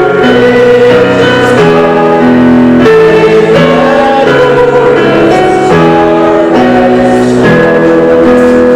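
Hymn music with instrumental accompaniment: held chords that change about every second.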